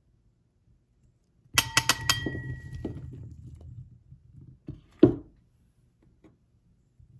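A ceramic plate clinks against the rim of a porcelain bowl several times in quick succession, about a second and a half in, each clink ringing briefly. Blueberries and blackberries then roll and tumble off the plate into the bowl for about two seconds, and two knocks of crockery follow, the second the loudest.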